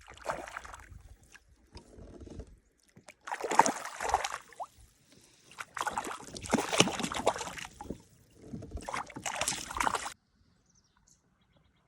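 Water splashing in four irregular bursts as a hooked rainbow trout thrashes at the surface; the splashing cuts off suddenly near the end.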